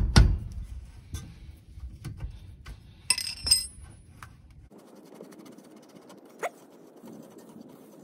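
Hand work on a car's rear brake caliper: a wrench and the caliper slide bolt clicking and scraping, metal on metal, with a short ringing clink a little over three seconds in. After that the handling goes faint, with one more click.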